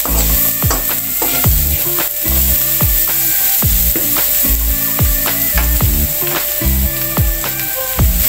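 Torch ginger (kecombrang) flower slices sizzling as they sauté in hot oil in a pan, a steady frying hiss, heard over background music with a regular bass beat.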